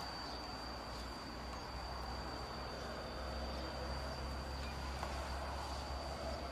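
A steady, high-pitched insect drone over a low hum and a wash of outdoor noise.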